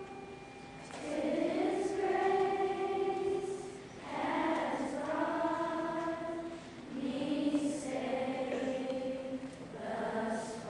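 A children's school chorus singing in four phrases of long held notes, each starting about three seconds after the last.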